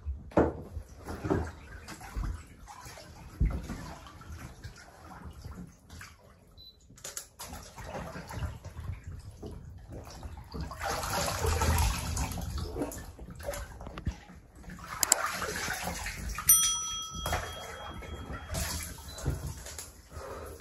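Water splashing and pouring in a bathtub onto soaked clothing, in uneven bursts and sloshes that are heaviest a little past halfway. A brief steady high-pitched tone sounds about three-quarters of the way through.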